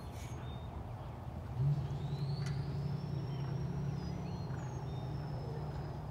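Outdoor arena ambience: a steady low hum starts about a second and a half in and carries on to near the end, with scattered faint bird chirps and a thin high whistle above it.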